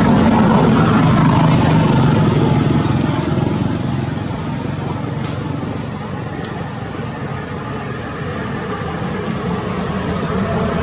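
Motor vehicle engine running as it passes, loudest at first, fading in the middle and swelling again near the end.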